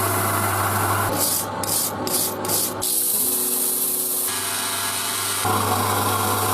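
An electric power tool running with an abrasive rubbing sound against metal, as in stripping rust and dirt from an old steel spiral jack. The sound changes abruptly about three times, as the work is cut between passes.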